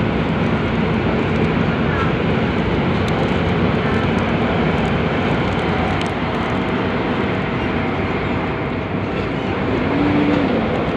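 Steady running noise of an MTR metro train, heard from inside the carriage.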